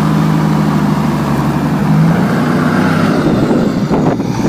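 Toyota Land Cruiser 80 driving slowly past on a gravel track, its engine running steadily with a low hum while the tyres roll over the gravel.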